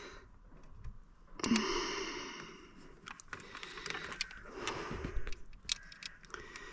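A breathy sigh about a second and a half in, then scattered light clicks and taps from hand work on an Audi ignition lock.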